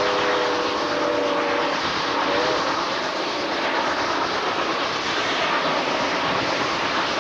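Steam locomotive running at speed, heard from the moving train: a loud, steady rush of running noise. A chord of steady whistle notes cuts off about two seconds in, followed by a short wavering whistle note.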